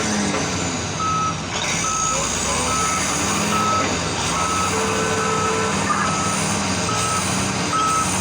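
Reversing alarm of a CAT 777E haul truck, one steady pitch beeping at a regular pace of a little more than one beep a second, over the continuous low running of heavy diesel machinery. The truck is backing up.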